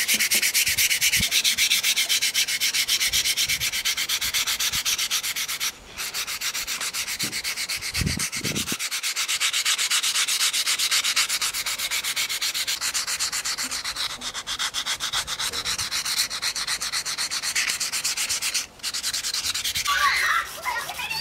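Sandpaper rubbed by hand over a stabilized oak knife handle in rapid back-and-forth strokes, a fast even rasping rhythm that breaks off briefly twice.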